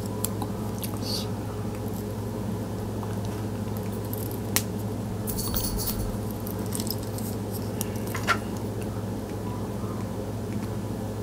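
A few sharp clicks and light rustles of thin wire being bent with small round-nose pliers, two clicks standing out about halfway and two-thirds of the way through, over a steady low hum.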